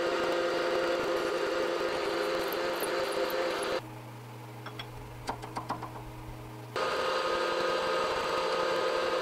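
Bench milling machine running, its spindle drilling a hole through a steel rod clamped in a vise, a steady machine sound with a whine in it. About four seconds in it drops to a low hum with a few light clicks, and the machine's running sound returns about three seconds later.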